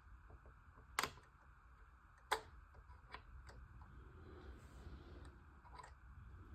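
Small plastic model parts being handled: two sharp clicks about one and two seconds in, then a few fainter ticks, over a faint steady hum.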